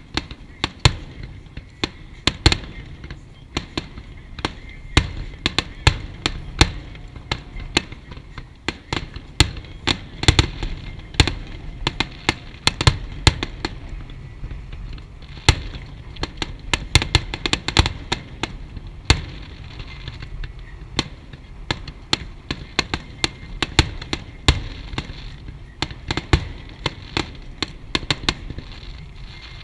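Fireworks going off in a rapid, continuous string of sharp bangs and pops, several a second, with a steady rumble underneath.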